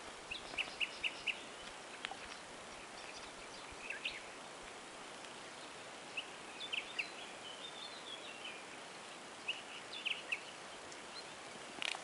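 Small birds chirping faintly in short runs of quick high chirps, several times over, against a steady outdoor background hiss.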